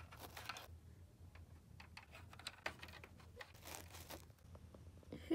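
Faint rustling and small scattered clicks of hands moving a plastic toy horse and figure through grass, with a louder rustle near the start and another a little before the end.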